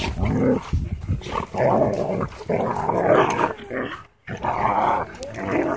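Dogs growling during rough play-fighting, a run of irregular rough bursts with a brief break about four seconds in.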